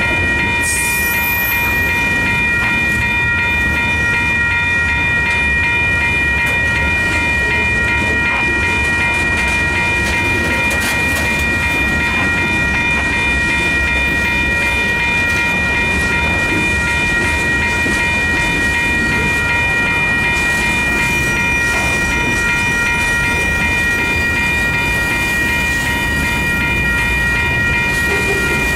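Manifest freight train's cars rolling past at close range, a steady rumble of wheels on rail. Several steady high-pitched tones ring unbroken over it throughout.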